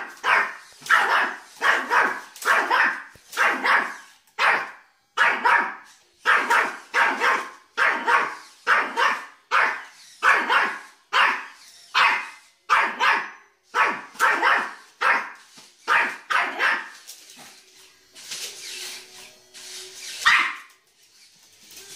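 Yorkshire terrier barking repeatedly and fast, about two sharp barks a second, at a toy robot. The barking stops about three quarters of the way through, and one more sharp bark comes near the end.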